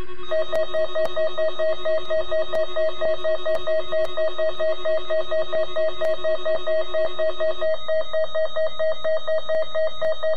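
Weather radio receiver's alert alarm beeping rapidly, about four beeps a second, set off by the weekly alert test. A steady lower tone sounds under it and stops about three-quarters of the way through.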